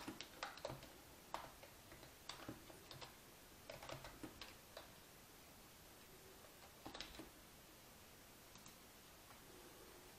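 Scattered clicks of a computer keyboard and mouse being used, in short runs through the first five seconds and again about seven seconds in, with little else between them.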